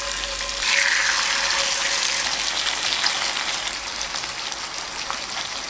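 Coated chicken thigh pieces sizzling as they are laid with tongs into hot olive oil in a cast-iron skillet. The sizzle swells to full strength about a second in and carries on as a steady hiss.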